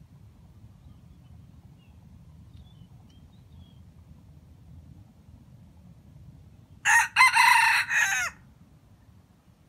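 A wild jungle-chicken (red junglefowl) rooster crows once, about seven seconds in, in a call of a second and a half that breaks into a few segments and ends on a falling note. A few faint bird chirps come a few seconds earlier.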